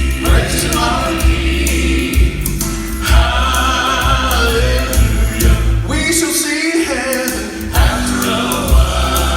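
Gospel vocal quartet singing in harmony over instrumental backing with a strong bass line. There is a brief lull about six seconds in.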